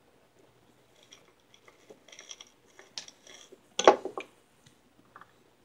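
Cutters working the insulation off a thick soldered 8-gauge wire in a series of small clicks and crunches, followed just under four seconds in by a single loud knock, a tool set down on the wooden bench.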